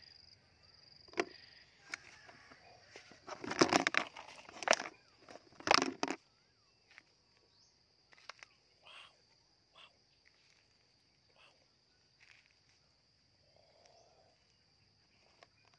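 Crackling and rustling in dry leaves and twigs, loudest for a few seconds about three seconds in, then only scattered small clicks. A steady high insect drone runs underneath.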